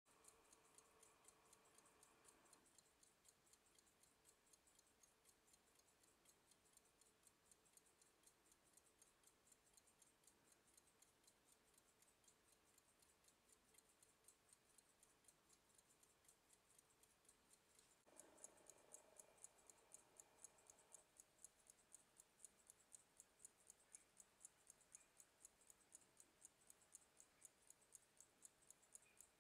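Faint, rapid, even ticking of a circa-1860 Scott and Son, Kendal silver pocket watch with a chain-driven fusee and lever escapement, running. The ticking grows louder about two-thirds of the way through.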